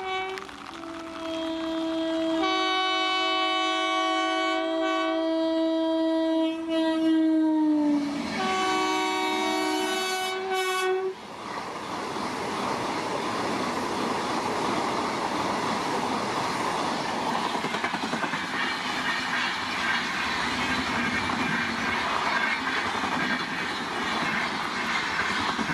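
Electric locomotive's multi-tone horn sounding a long blast whose pitch drops as the train passes at speed, then a second, lower blast ending about eleven seconds in. The express then rushes past with a steady clatter of wheels on the rails.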